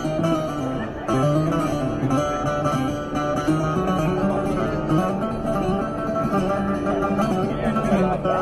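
A plucked string instrument laid flat across a street musician's lap, playing a continuous melodic tune of picked notes.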